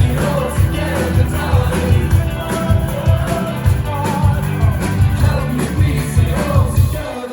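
Live pop-rock band playing at full volume, with a steady driving drum and bass beat and singing over it, the sound dropping away right at the end.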